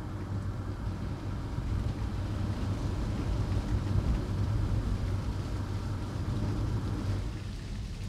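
Car driving along, a steady low rumble of engine and tyres heard from inside the cabin, easing slightly near the end.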